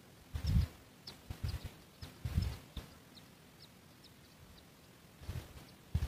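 Several muffled low thumps come in clusters, the loudest in the first two and a half seconds. Between them are about a dozen faint, very short, high-pitched bird chirps.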